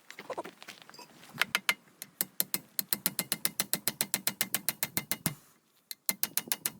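Ratchet wrench clicking in a quick, even run of about six clicks a second, stopping briefly near the end and then starting again.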